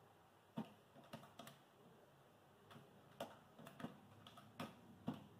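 Faint clicks of calculator buttons being pressed, about ten key presses in irregular groups.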